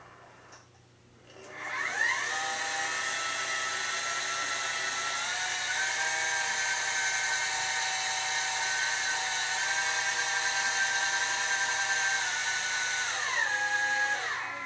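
A 12-inch Meade LX200R's drive motors whine as the fork mount slews in azimuth during Autostar II sensor calibration. About a second and a half in the whine rises in pitch as the motor speeds up, holds steady, then falls and stops near the end as the slew slows to a halt.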